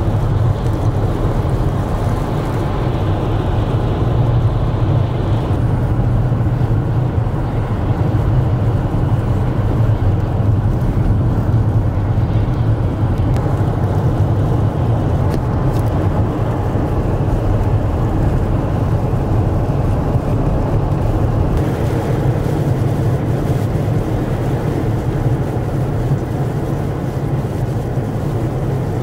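Steady road and engine noise of a car driving on a snow-covered highway, heard from inside the cabin, with a constant low hum.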